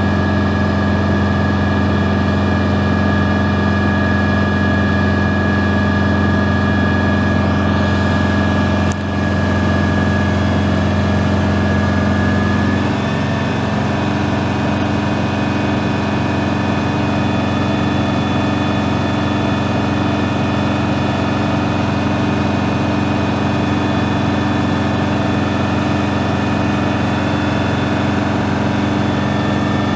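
The 1985 Duplex ladder fire truck's eight-cylinder turbo diesel engine idling steadily. There is a brief click about nine seconds in, and about thirteen seconds in the engine note changes slightly and drops a little in level, then holds steady again.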